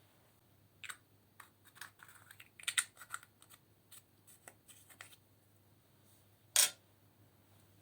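Irregular small clicks and crackles from slime being worked together with broken-up eyeshadow, in a scattered run for a few seconds, then one louder, sharper crack about six and a half seconds in.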